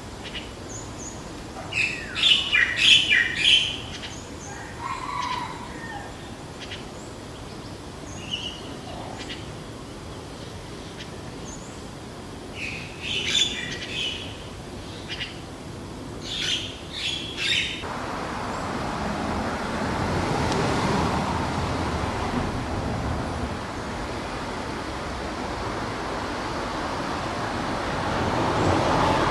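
Birds calling in short scattered bursts, the loudest cluster about two to four seconds in. A little over halfway the calls stop and a broad rushing noise of passing road traffic swells and fades, then rises again near the end.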